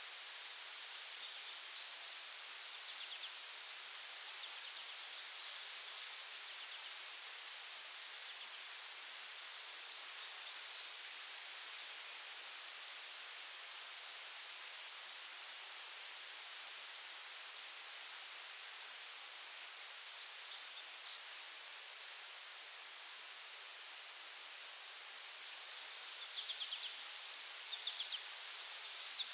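Insect chorus: a steady, shrill high drone with runs of rapid, evenly spaced cricket-like chirps over a soft hiss. A few short, higher chirping calls come in near the end.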